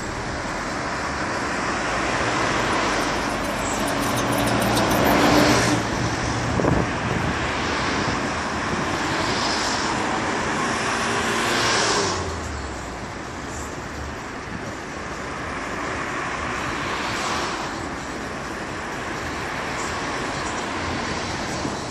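Road traffic on a city street: cars driving past, the tyre and engine noise swelling as each goes by, loudest about five seconds in and again about twelve seconds in, then a little quieter.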